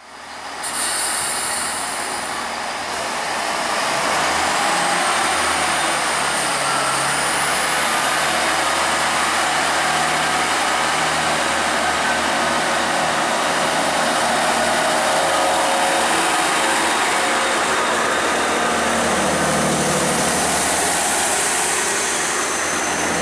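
Class 166 diesel multiple unit 166220's diesel engines running, then powering up with a rising drone near the end as the train moves off. A faint high whine rises a few seconds in.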